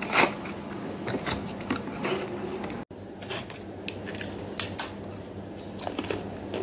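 Thick homemade potato chips being bitten and chewed: an irregular scatter of short, crisp crunches.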